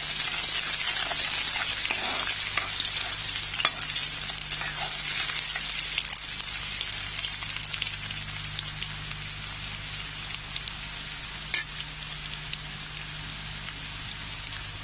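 Sliced onions sizzling in hot oil in a kadhai, a dense crackling hiss with scattered sharp pops, freshly added and frying toward brown. The sizzle eases a little over time, and one louder pop comes about two-thirds of the way through.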